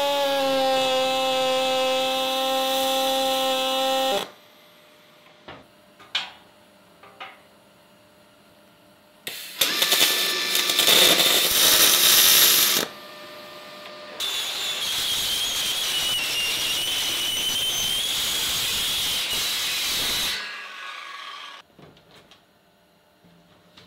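Workshop power tools at work on metal, in edited snippets: a motor whining at a steady pitch that cuts off suddenly after about four seconds, a few sharp clicks, a loud harsh burst of cutting or grinding, then a longer run with a wavering high whine that dies away near the end.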